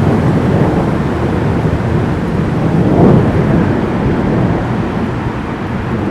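Thunder rumbling long and low through a thunderstorm, swelling to its loudest about halfway through.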